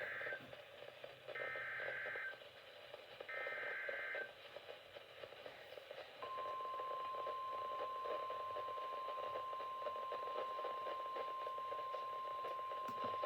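Emergency Alert System SAME header: short bursts of buzzing digital data, the first ending just after the start and two more about two seconds apart. From about six seconds in comes a single steady, unbroken 1050 Hz NOAA Weather Radio warning alarm tone, heralding a tornado warning, over a faint hiss of radio static.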